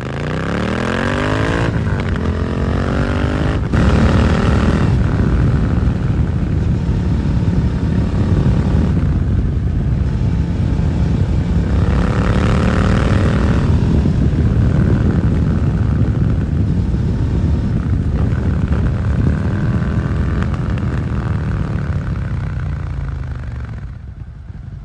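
Suzuki SV650's 645 cc V-twin through a Dominator GP exhaust, accelerating: the revs climb and drop at two gear changes in the first four seconds. It then runs steadily at speed with wind noise, climbs once more around the middle, and winds down as the bike slows near the end.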